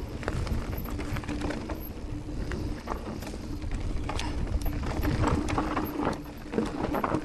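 Electric mountain bike rattling over a rough trail at speed: a dense run of clicks and knocks from the chain, drivetrain and frame, over a low rumble of wind on the microphone.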